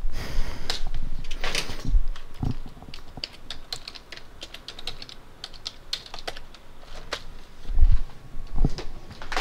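Computer keyboard keys clicking as a password is typed, in quick irregular taps, with a few heavier low knocks, the loudest near the end.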